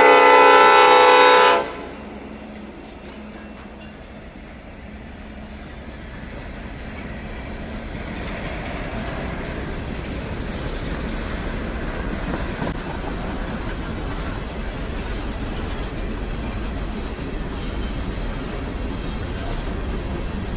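Old cast Nathan P5 five-chime train horn sounding a loud, steady chord that cuts off about a second and a half in. Then comes the rumble and wheel clatter of the freight train rolling past, growing gradually louder.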